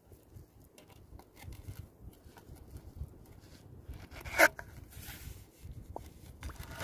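Soft scrapes and small clicks of a plastic PVC pipe being pressed and worked into wet sand under shallow water over a burrow, with one short, louder sound about four and a half seconds in.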